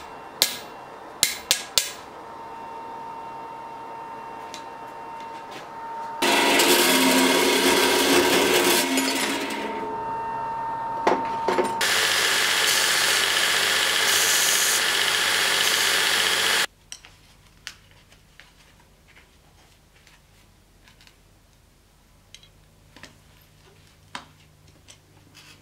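Belt grinder running and grinding a small metal part: a loud, even grinding noise that starts about a quarter of the way in and cuts off suddenly about two-thirds through. Light clicks and taps of hand work on a knife blade follow.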